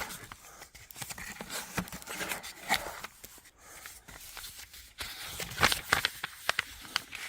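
Packaging and paper being handled during an unboxing: rustling and crinkling with scattered clicks and taps, and a quick flurry of sharper clicks about five and a half seconds in.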